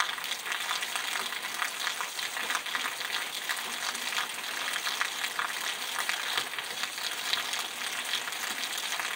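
Steady rain falling on a wet paved street: a dense, even crackle of drops hitting pavement and puddles.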